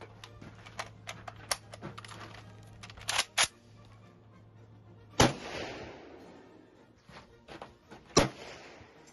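Two rifle shots from a G43 semi-automatic rifle in 8mm Mauser, about three seconds apart, each with a long echo trailing off. They follow a run of sharper clicks and knocks in the first few seconds.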